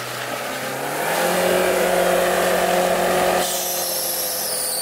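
Chevrolet Niva's four-cylinder engine revved at full throttle, its revs climbing over the first second and then held high. About three and a half seconds in a high-pitched squeal joins: the drive belt slipping with water on it.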